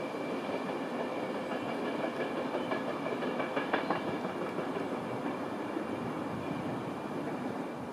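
LNER High Speed Train with a Class 43 diesel power car passing along the line, a steady rail rumble with a thin high whine over it and a few sharp clacks about halfway through.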